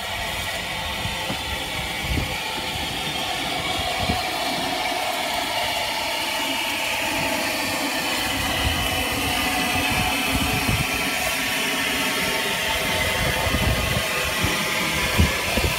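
Bulleid Battle of Britain class steam locomotive 34081 moving slowly up to its carriages to couple on, a steady hiss of steam and a rumble of the engine that grow gradually louder as it closes in.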